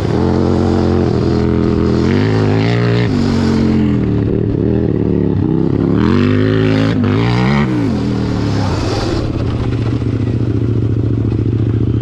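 Engine of a 100-horsepower Power Wheels 4x4 revving hard, its pitch climbing and dropping several times as the throttle is worked, then holding steadier over the last few seconds.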